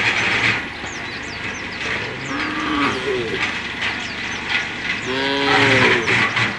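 Cattle mooing: a couple of short moos around the middle, then a longer, louder moo about five seconds in.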